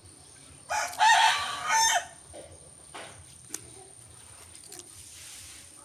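A rooster crows once, a single call lasting about a second and a half, starting just under a second in.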